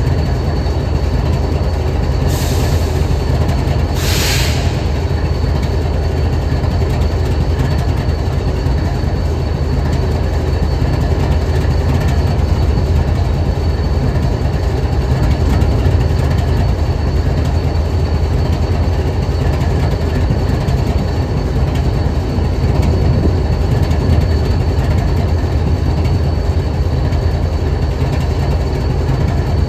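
Diesel-electric locomotive idling: a steady, deep, even rumble from its prime mover, with two short hisses about two and four seconds in.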